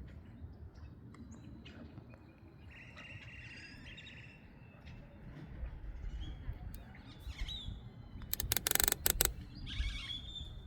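Birds chirping and calling across the lake, including a buzzy call about three seconds in, over a low wind rumble. About eight seconds in comes a brief cluster of sharp clattering sounds.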